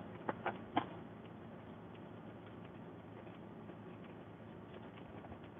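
Faint, steady cabin noise of a car being driven, with three sharp clicks in quick succession in the first second.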